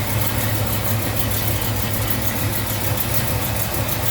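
Car engine idling steadily, running on a newly fitted single serpentine belt setup.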